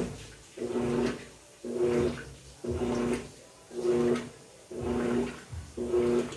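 Electrolux LT13B top-loading washing machine agitating: the motor hums as it drives the agitator one way, then the other, about once a second, each stroke with a swish of sloshing water and clothes.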